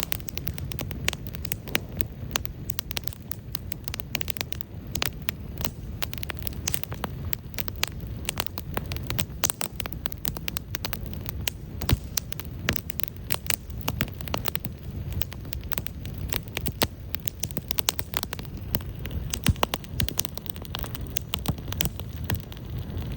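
Wood campfire crackling, with many irregular sharp pops over a steady low rush and a few louder pops.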